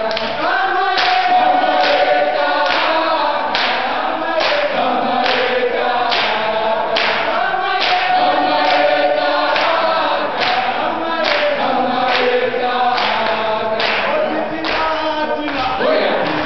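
A group of students singing a political song together in chorus, unaccompanied, with a sharp regular beat a little more than once a second.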